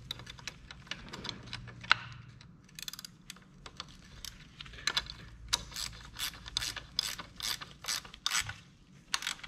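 Hand ratchet wrench clicking as the rear brake pedal's pivot bolt and nut are tightened down. It starts quietly, then gives a steady run of ratchet ticks, about two to three a second, from about three seconds in.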